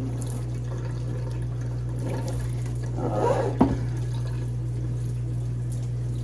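Kitchen tap running water into the sink as a glass refrigerator shelf is rinsed, with a sharp knock about three and a half seconds in. A steady low hum sits underneath.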